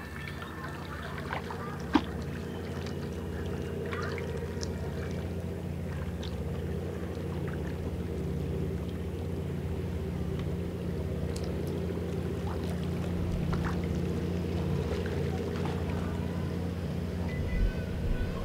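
A steady, low engine drone with a pitched hum, swelling slightly toward the middle. A sharp click comes about two seconds in, and a few faint clicks follow.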